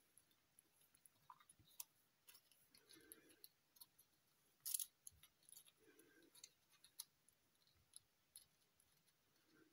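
Faint crinkles and small clicks of shiny foil origami paper being handled and its modules slotted together into a cube, with one louder crackle about five seconds in.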